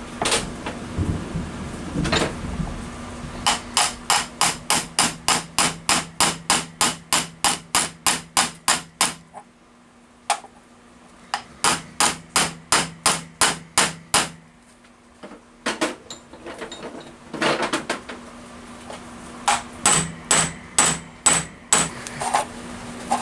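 Ball-peen hammer tapping on a metal disc to drive a freezer-chilled arbor adapter bushing into a warmed V-belt pulley, a shrink fit. The taps come in quick runs of about four a second with pauses between, and the last few have a brief metallic ring.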